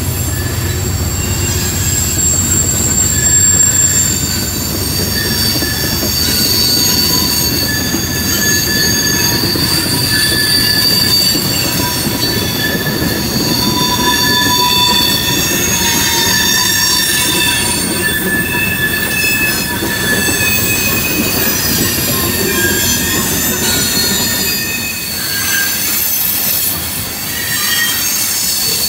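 Loaded freight train of tank cars rolling past on a curve, its wheel flanges squealing on the rail in several high, shifting tones over a steady low rumble of wheels on track.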